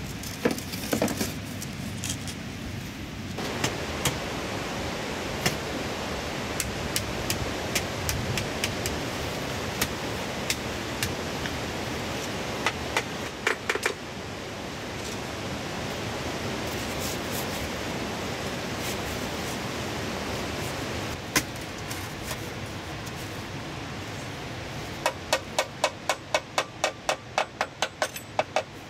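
Steady rush of a river, with scattered knocks and clicks of cut bamboo being handled; bamboo tubes knock together near the start. Near the end comes a quick run of about a dozen sharp knocks, about four a second, as a bamboo post is tapped into place against the rock.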